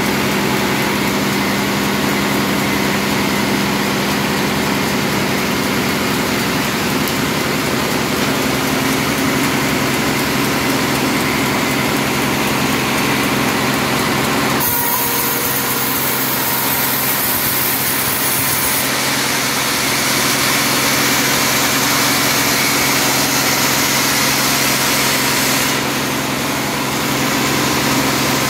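Sawmill band saw running steadily with a constant motor hum. About halfway through the sound turns brighter and hissier as the blade cuts into a teak log on the carriage.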